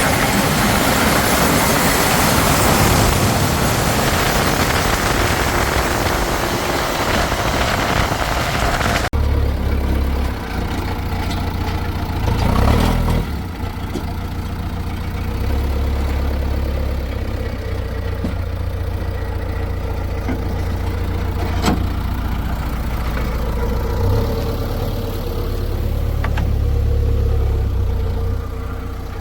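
Diesel engine of a backhoe loader or tractor running steadily. About nine seconds in the sound changes abruptly to a lower, steadier engine note, with a few short knocks later on.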